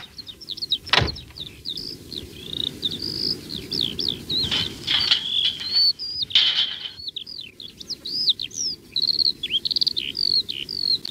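Songbirds chirping and twittering in quick, dense, high runs of short notes, with a single sharp knock about a second in.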